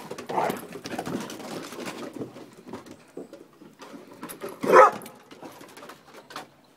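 Two dogs, a German Shorthaired Pointer and a smaller long-haired dog, play-fighting: growling and scuffling with claws clicking on wooden decking, and one short, loud bark a little past the middle.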